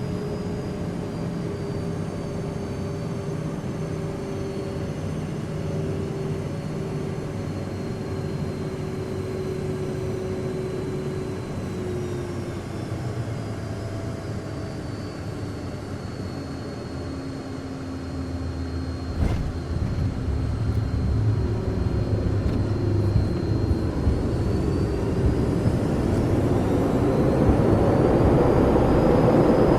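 Jet aircraft engines running, a high whine drifting slowly lower and then rising again near the end. A low rumble swells and grows steadily louder over the second half, with a single sharp click partway through.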